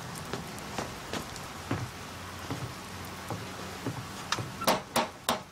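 Footsteps climbing wooden porch steps and crossing the porch over a steady hiss, then three sharp knocks on a front door near the end.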